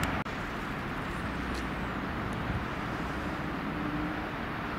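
Steady outdoor background rumble of a railway station and city with no train close by. A faint steady hum joins about three seconds in.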